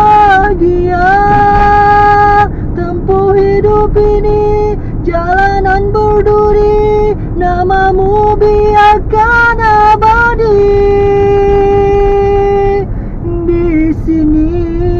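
A high voice singing a slow melody, with a long held note near the end, over the low rumble of a car on the move.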